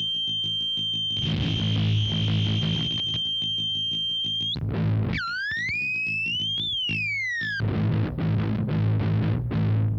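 Electronic noise from a circuit-bent Waldman flanger pedal: a distorted buzzing drone with a steady high whistle over it. About five seconds in, the whistle breaks into a swooping sweep that dips, climbs and falls back. Near the end it turns to a fast stuttering pulse.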